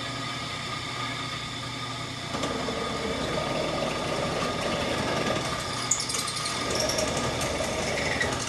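Electric drill running steadily, boring out a bolt hole with a slightly larger bit, the sound growing a little louder about two seconds in as the bit cuts.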